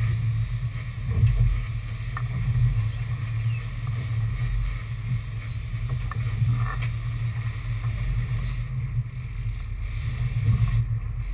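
Sportfishing boat's engines running with a steady low drone, heard from inside the cabin as the boat moves through the water.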